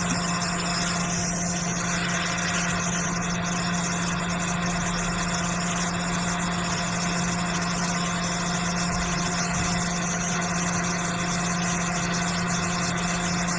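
Hot-air rework station blowing steadily with a constant hum, set to 300 degrees to soften and remove the glue around a chip on a logic board.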